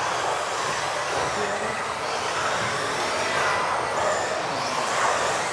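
Several electric 1:10 RC off-road buggies racing on an indoor carpet track: a whining of motors that rises and falls as the cars accelerate and brake, over a steady haze of drivetrain and tyre noise, echoing in a large hall.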